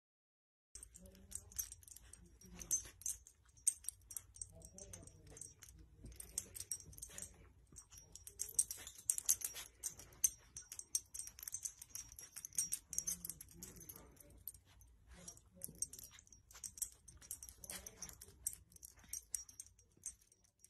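A dog's collar tags jingling and blankets rustling as the dog noses and paws at the bedding: faint, irregular clinks and crackles starting about a second in.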